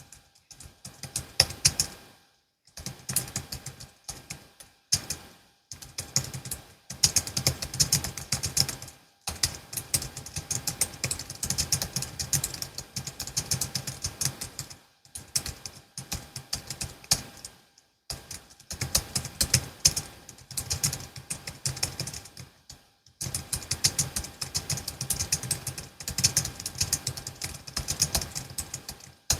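Fast typing on a Logitech MX Keys S low-profile scissor-switch keyboard: quick, dense runs of key clicks broken by short pauses every few seconds.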